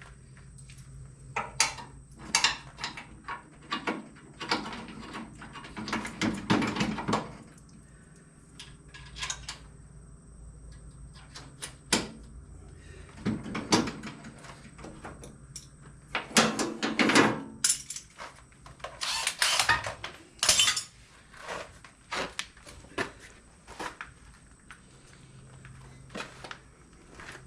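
Irregular clanks, knocks and scrapes of hand tools and metal parts being handled during a mower deck castor repair, with a few louder clusters of clatter around a quarter and two-thirds of the way through.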